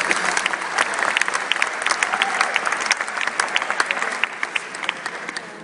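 A large seated audience applauding, the clapping thinning out and fading toward the end.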